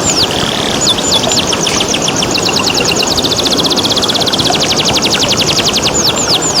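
Domestic canary singing a fast song: a run of high notes that sweep downward, then a rapid trill of short notes in the middle, then sweeping notes again near the end. Under it runs the steady hiss of flowing water.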